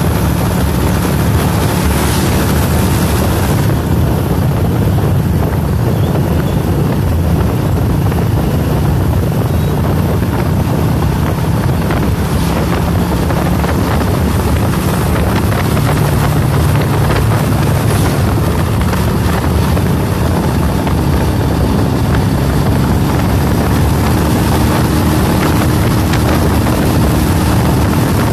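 Motorcycle engine running steadily on the move, with wind buffeting the microphone.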